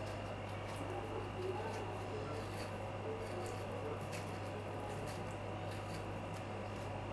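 Small kitchen knife peeling the skin off a ripe peach: faint, scattered ticks and scraping as the blade cuts through the skin, over a steady low hum.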